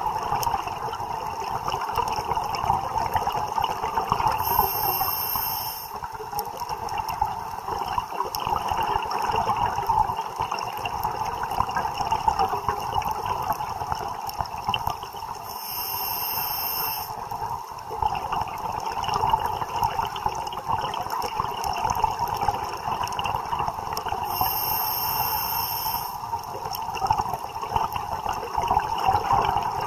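Underwater ambience picked up by a diver's camera: a steady watery hiss with fine crackling. Three times, about ten seconds apart, a short high hiss of a breath through a scuba regulator.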